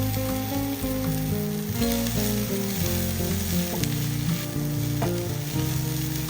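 Egg and bean sprouts frying in hot oil in a pan, a steady sizzle, with a few sharp clicks.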